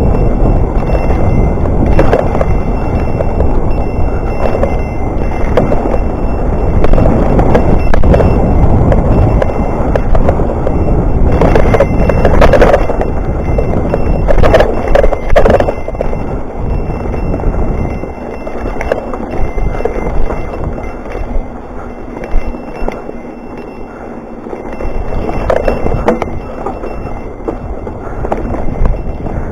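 Mountain bike rolling over a rough trail: steady tyre and rattling noise broken by sharp knocks, with a run of harder knocks about halfway through and a quieter stretch after that.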